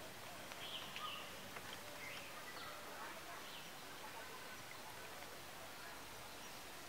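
Faint outdoor ambience: several short bird chirps in the first few seconds, over a steady background hiss.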